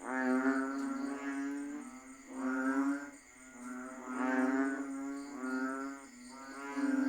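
Banded bullfrogs (Asian painted frogs) calling in chorus: a run of low, steady-pitched calls, each about a second long, following one another every second or two.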